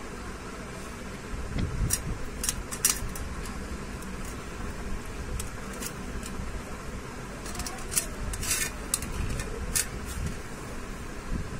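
A knife clicks and scrapes a few times against a stainless-steel plate as a gulab jamun is cut in half. There is a steady background hum under it.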